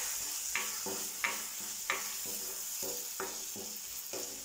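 Chopped onion, tomato and green beans frying in oil in a metal kadai: a steady sizzle, with a plastic spatula scraping and stirring them around the pan in strokes about every half second to a second.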